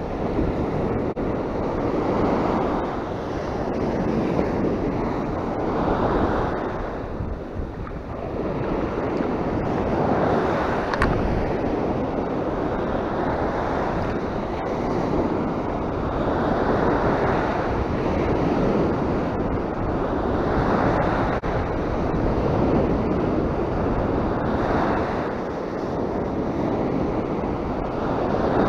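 Surf breaking on a sandy shore, the wash swelling and falling back every three to four seconds, with wind buffeting the microphone.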